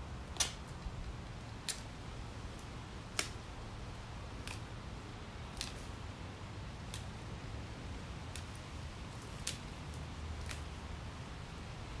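Hand loppers snipping through small branches: about nine sharp snips, one every second or so, the first the loudest.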